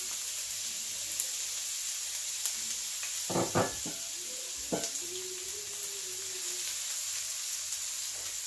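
Chopped garlic sizzling in hot olive oil in a wok, a steady hiss, with a spatula stirring it near the end. A brief voice-like sound stands out about a third of the way in.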